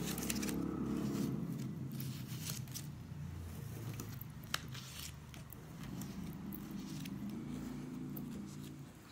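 Green card paper being folded and creased by hand: faint rustles and soft taps, with one sharper click about four and a half seconds in, over a low steady hum.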